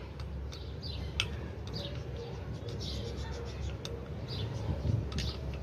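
Faint clicks and light metal handling of a 9mm pistol's slide and frame as they are lined up for reassembly, with birds chirping in the background.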